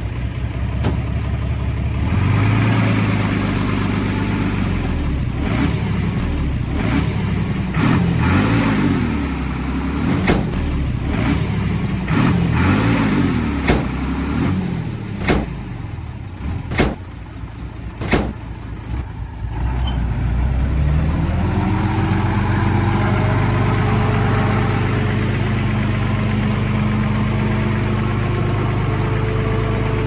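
Heavy-equipment diesel engine working, its pitch shifting with load, with several sharp knocks spread through the first two-thirds. About two-thirds of the way through the engine revs up and then runs steadily.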